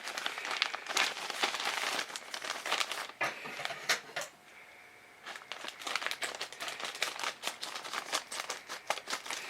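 A cable's packaging being opened and handled: crinkling and crackling, with a short pause a little past halfway before it resumes.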